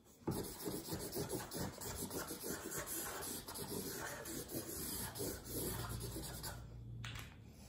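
Black felt-tip marker scribbling quickly back and forth on paper in many short rapid strokes, stopping a second or so before the end.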